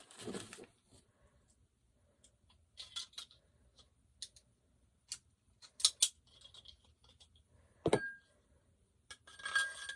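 Scattered metal clicks and clacks as the parts of a 6-in-1 survival shovel are handled and fitted together, with a louder knock about eight seconds in that rings briefly.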